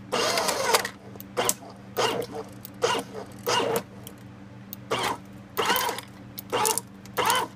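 Paper shredder converted into a plastic grinder, run in short pulses, its cutters crunching and cracking small failed 3D-printed plastic parts in about nine quick bursts. The pulsing is how the crowded load is kept from jamming.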